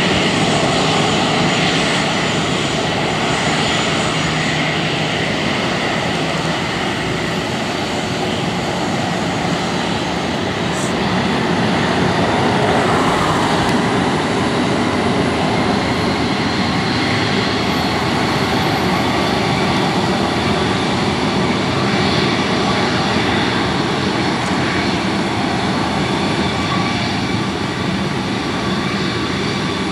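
Boeing 737-400's two CFM56-3 turbofan engines running at low taxi thrust as the freighter taxis past. The jet noise is steady, with a few faint held whining tones.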